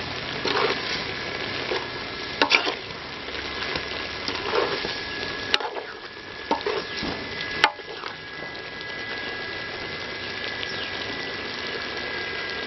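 Goat blood and intestine fry sizzling in a metal pan as a spoon stirs it, with a few sharp clicks of the spoon against the pan.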